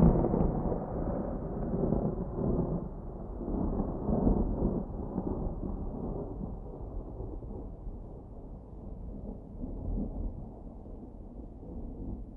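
Rolling thunder: a deep rumble that swells a few times early on, then slowly dies away into a faint low grumble.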